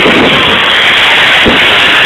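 Fireworks display: two deep bursts of shells exploding, one at the start and one about a second and a half in, over a loud, constant hiss.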